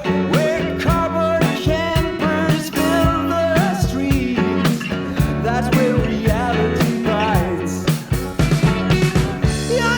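Background rock song with a steady beat, guitar and a singing voice.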